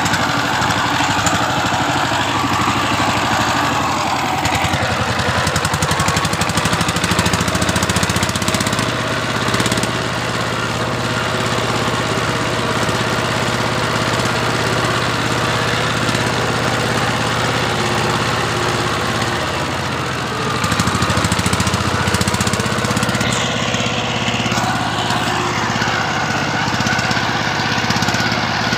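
Two-wheel power tiller's single-cylinder diesel engine running steadily under load as it pulls a loaded trailer through deep mud. It eases slightly about two-thirds of the way in, then picks up again.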